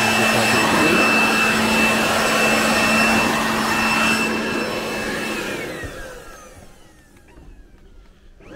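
Corded electric leaf blower (Sterwins) running at full speed with a steady whine. About five seconds in it is switched off and the motor winds down, its whine falling in pitch as it fades.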